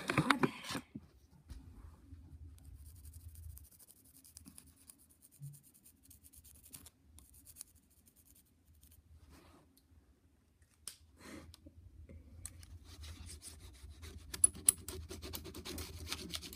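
Knife blade scraping and rubbing against a floppy disk's plastic casing as it cuts into it, in two scratchy stretches.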